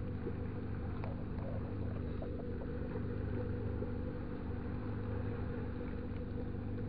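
A steady low mechanical drone with a constant hum, like an engine running nearby.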